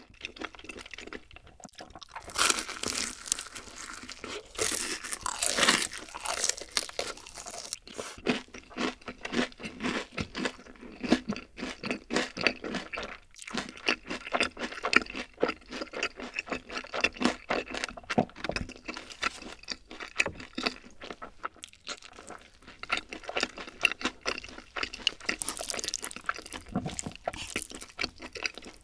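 Close-miked crunching and chewing of crispy honey-glazed fried chicken, with the loudest crunchy bites in the first several seconds and wetter chewing after.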